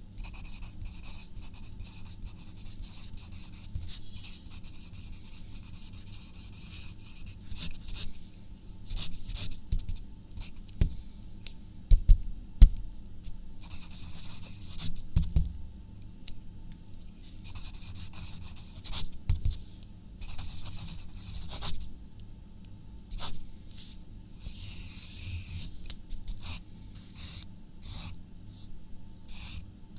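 Handwriting: a writing tool scratching across a surface in short runs of strokes with pauses between them, over a low steady hum. A few sharp knocks stand out near the middle.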